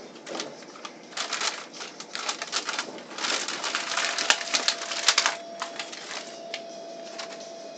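Paper bag being crinkled and rustled as it is handled and opened: a run of dense crackles from about a second in until just past five seconds, then a few scattered rustles. A faint steady tone comes in about four seconds in.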